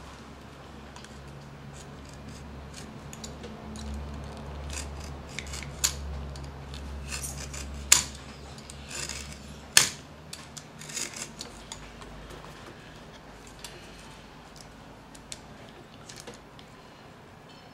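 Utility knife cutting a notch into thick, water-softened leather: a run of short scraping cuts and small clicks, with two sharper clicks a little past the middle.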